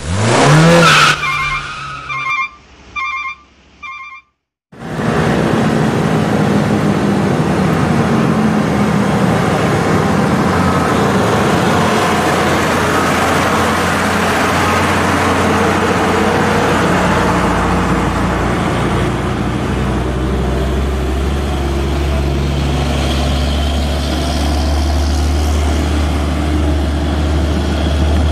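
A short intro jingle: a swoosh and four quick electronic chimes, then a brief cut to silence. After that, heavily loaded diesel cargo trucks labour up a steep climb, their engines running hard under load with road noise, and a deep low drone grows louder in the second half as a truck draws close.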